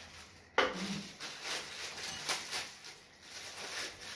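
Eating sounds at a shared meal: a sharp clack about half a second in, then a run of quick crunching and chewing noises from bites of crisp fried snacks.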